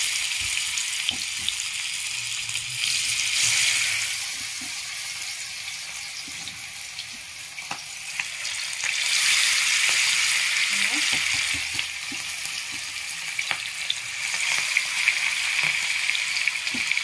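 Fish pieces coated in a besan-and-spice batter sizzling in hot oil in a frying pan. The hiss swells louder three times as more pieces are slipped into the oil, with a few light clicks along the way.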